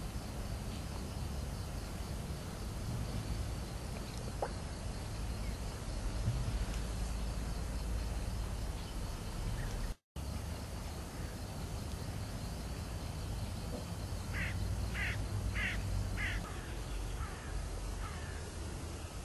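European bee-eaters calling: four short calls about half a second apart, then a few fainter ones, over a steady low rumble. The sound cuts out briefly about halfway through.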